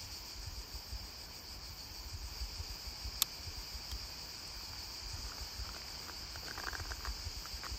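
Crickets chirring steadily in a continuous high band, over a faint low rumble, with a single sharp click about three seconds in.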